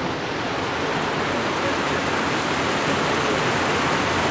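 Steady, loud rushing of water, an even hiss with no breaks.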